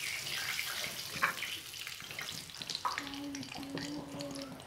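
Hot cooking oil sizzling in a frying pan, with scattered crackles and pops.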